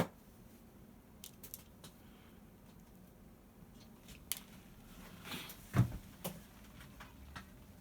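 Quiet handling at a workbench during the lasting of a leather shoe: scattered small clicks and taps of tools on leather and the last, a brief rustle, then one soft knock about six seconds in.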